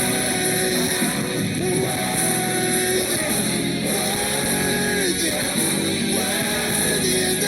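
A gospel praise song playing, with a singer's long held notes over full band accompaniment.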